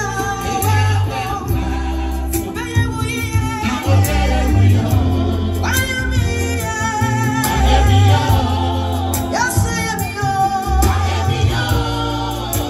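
Ghanaian gospel song: voices singing over a steady bass line and drums.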